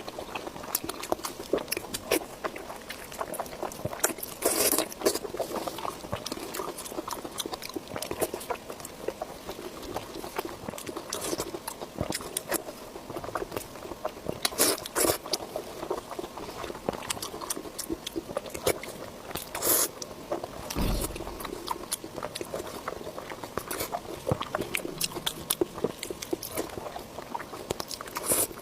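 Close-miked eating: steady wet chewing and biting with many small mouth clicks and smacks, and a few louder bites about 5, 15 and 20 seconds in. A brief low thump comes near 21 seconds.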